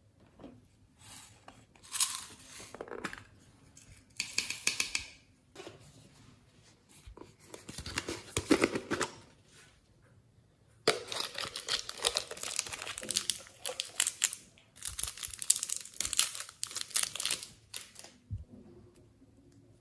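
Thin plastic crinkling and crackling in several bursts, with short quiet gaps between, as hands handle small plastic containers. The longest, densest bursts come in the second half.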